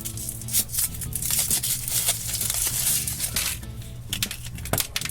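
Foil wrapper of a chocolate surprise egg crinkling and tearing as it is peeled off, over background music with a steady beat.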